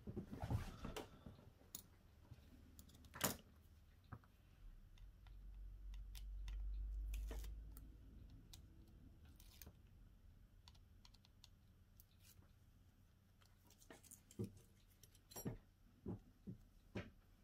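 Sparse small clicks and taps from hand tools and parts being handled in a phone repair, sharpest about three seconds in and bunched together near the end. A low rumble swells and fades in the middle.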